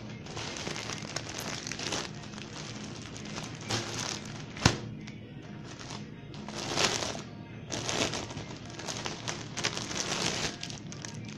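Rustling and crinkling of garments being handled, folded and moved, in several irregular bursts, with one sharp click about halfway through.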